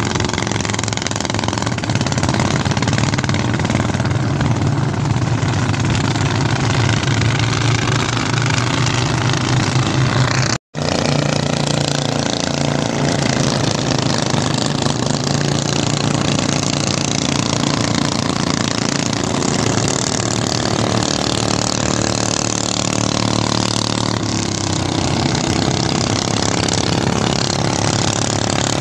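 Single-cylinder diesel engines of several two-wheel walking tractors running hard as they churn through a flooded rice paddy, a steady loud engine drone. The sound cuts out for an instant about a third of the way through, then the engines carry on.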